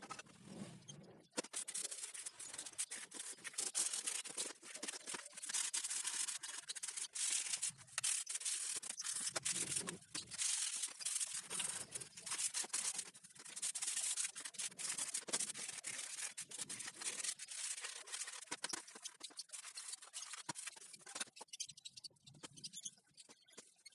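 Hand rubbing and scraping on the rusty sheet-steel frame of an exhaust fan: a brush and sandpaper are worked over the metal in rough, irregular rasping strokes, dying down near the end.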